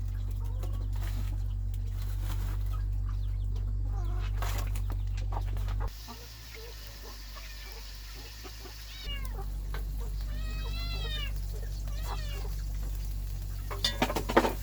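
Kittens meowing: a run of short, high, rising-and-falling meows in the second half, over a steady low hum. A few sharp knocks come near the end.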